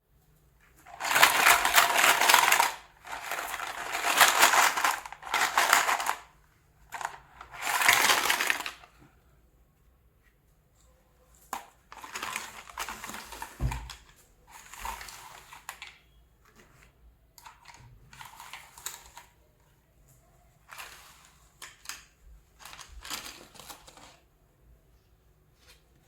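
Packaging and small plastic toy pieces of a miniature kitchen set being handled and unpacked: several loud rustling bursts in the first nine seconds, then quieter, shorter handling noises with a soft thump about halfway through.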